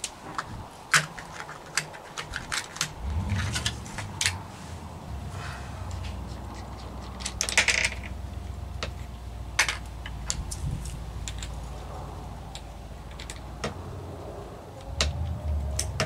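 Light clicks and taps of small sewing-machine parts being handled, then about three seconds in the low steady hum of an industrial sewing machine's motor starts and keeps running, with scattered clicks over it.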